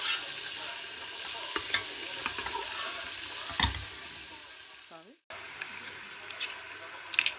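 Spiced oil sizzling in a metal pot while a metal slotted spoon stirs and scrapes it, with clicks and a knock of the spoon against the pot. The sound cuts out abruptly about five seconds in, then the sizzle resumes with a few sharp taps.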